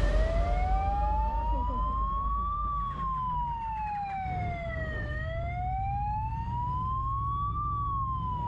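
Police motorcycle siren in a slow wail, sweeping up and down in pitch about once every five seconds, over a steady low rumble.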